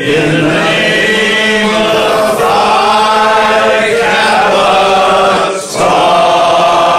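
A group of men singing a song together, holding long drawn-out notes, with two short breaks between phrases, about two and a half and five and a half seconds in.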